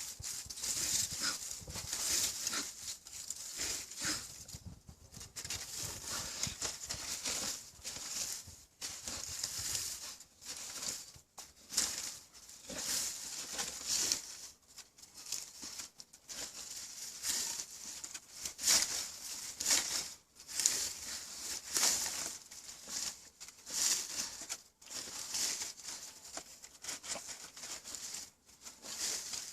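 A dog hiding a duck bone: irregular scratching and rustling noises, many short bursts one after another.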